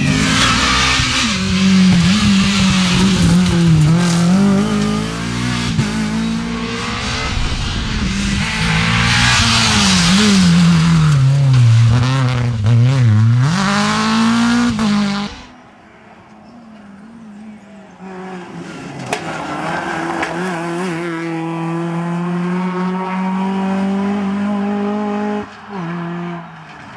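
Rally car engines at full throttle on a tarmac stage. First a Renault Clio rally car revs hard, its pitch repeatedly rising and falling through gear changes and corners, with some tyre squeal. About fifteen seconds in the sound cuts to a second rally car heard further off, its engine note climbing and then holding steady as it approaches.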